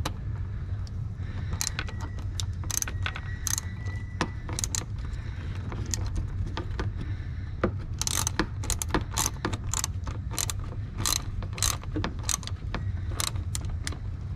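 Hand ratchet clicking as it turns a bolt in, in short runs of rapid clicks that come thicker from about eight seconds in, over a steady low hum.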